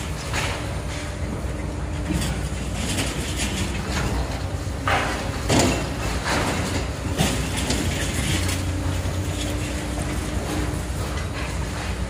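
Two long-reach demolition excavators at work: a steady engine and hydraulic drone, with repeated crunching and clattering as the crushers break up concrete and debris falls. The loudest crunch comes a little past halfway.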